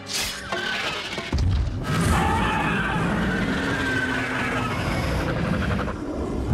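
Film-designed dragon roar, deep and long, setting in about a second in after a short rush of noise at the start.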